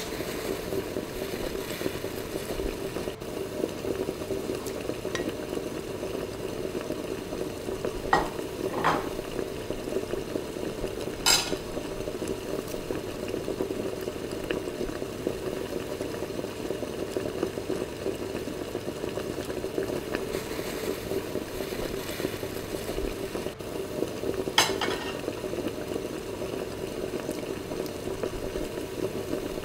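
Chicken in a cream sauce simmering in a frying pan as a spoon stirs it, a steady bubbling and sizzling, with a few sharp clinks of the spoon against the pan.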